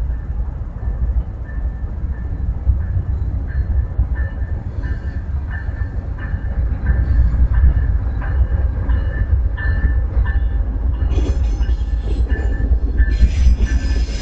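A train rolling on the rails: a steady low rumble that grows slightly louder, with steel wheels squealing on the track from about eleven seconds in.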